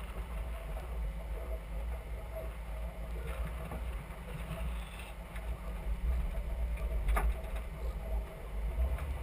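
Four-wheel-drive vehicle driving over soft sand dunes: a steady low rumble of the engine mixed with wind buffeting the roof-mounted microphone, with a couple of brief knocks as the vehicle jolts.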